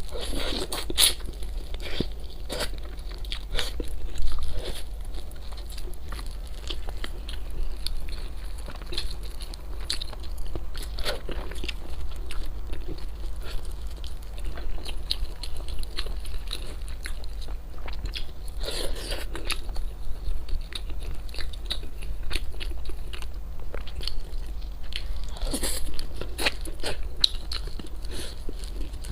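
Close-miked eating: steady chewing with many small crunches and a few louder crunching bites at intervals, over a steady low hum.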